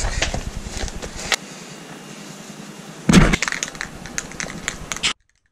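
Crinkling and crackling of plastic and cardboard packaging as a mask package is handled and opened, with a louder crackle about three seconds in. The sound cuts off suddenly near the end.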